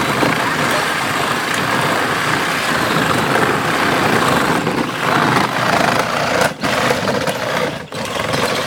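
Children's battery-powered ride-on quad driving on wet asphalt: its electric drive and plastic wheels make a steady rough grinding rumble. The sound drops out for a moment twice near the end.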